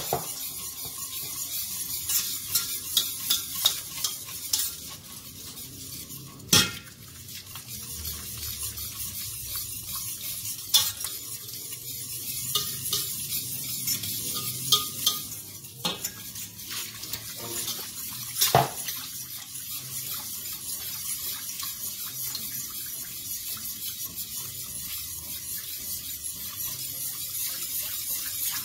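A metal utensil stirs and scrapes around a stainless steel AMC saucepan as milk is worked into a butter-and-flour roux for béchamel. Now and then the utensil knocks sharply against the pot, about four times.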